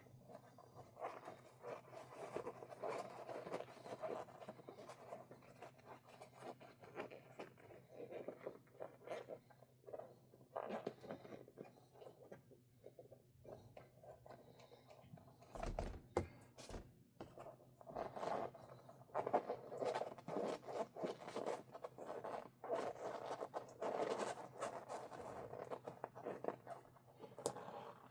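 Irregular scraping and rustling handling noises with scattered short clicks, busier in the first few seconds and again through the second half.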